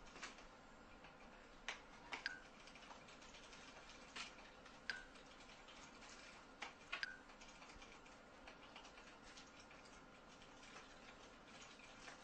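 Near silence with a faint hiss and about ten faint, irregular clicks scattered through it, a few with a brief ringing tail.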